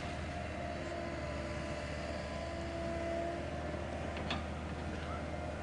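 Excavator's diesel engine running steadily: a low hum with a faint steady tone above it. A short sharp knock comes about four seconds in.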